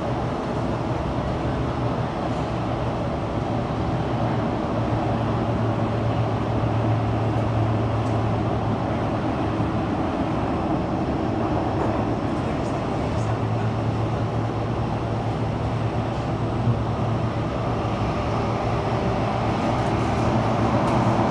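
Kawasaki-CRRC Sifang CT251 metro train running between stations, heard from inside the car: steady rumble and wheel-on-rail noise with a low hum that swells in places. The train's wheels have flat spots, which the rider calls "earthquake" flat wheels.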